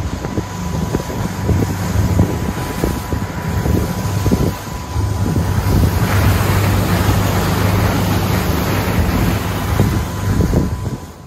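Boat underway at speed: a steady engine drone under heavy wind buffeting on the microphone, with water rushing past the hull. The water hiss grows louder about halfway through, and the sound cuts off abruptly at the end.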